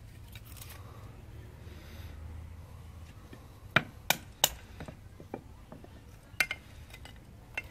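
A wooden baton striking the spine of a bushcraft knife to drive it down through a stick of wood. There are three sharp knocks close together about four seconds in, and more knocks later.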